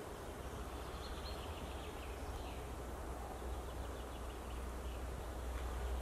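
Quiet spring-forest background: a steady low rumble with faint, short bird calls from a distance about a second in and again a second or two later.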